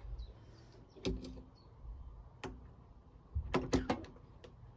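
Sharp clicks and clunks from a 12 V car battery's terminal clamp and leads being handled and fitted: a few separate knocks, then a quick cluster of them about three and a half seconds in.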